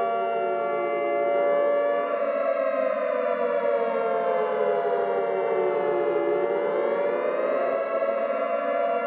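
Eerie siren-like wail over a steady droning tone. The pitch rises briefly about a second in, sinks slowly for several seconds, rises again near six seconds in, then falls.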